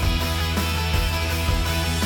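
Background music with a steady beat about every half second over a heavy bass line.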